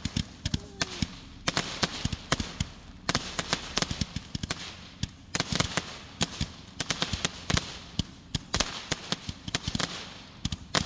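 Fireworks going off: a rapid, irregular run of sharp bangs and crackles, coming in clusters with short gaps.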